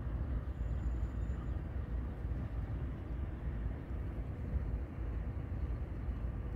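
Steady low rumble of diesel locomotives idling in a rail yard.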